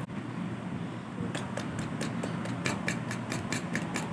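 Metal spoon beating eggs and sugar in a bowl, clicking against the bowl about five times a second from about a second in. The eggs are being beaten until the sugar dissolves.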